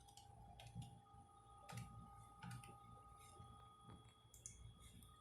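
Near silence with a handful of faint, irregularly spaced computer mouse clicks over quiet room tone and a faint steady high whine.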